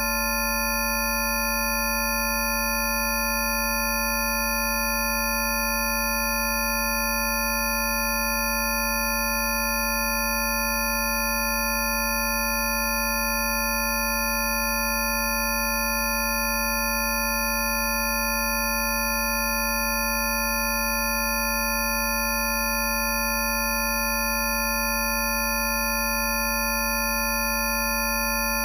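A stack of synthesized sine-wave Rife frequencies played together: many pure tones, from a low hum to a very high whistle, held perfectly steady as one unchanging chord.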